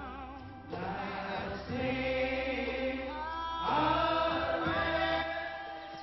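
Church congregation singing a hymn together in slow, held notes, with short breaks between phrases; it fades near the end.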